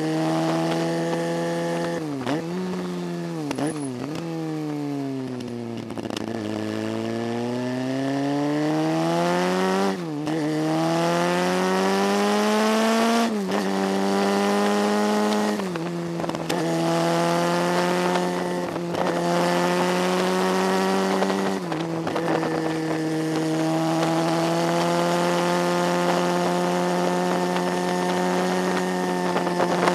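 Motorcycle engine heard from on board on a climbing mountain road. It slows with a few quick drops in pitch, then accelerates through the gears: the pitch rises and drops sharply at each upshift, twice. It then settles to a steady cruise, with a steady hiss of wind on the microphone over it.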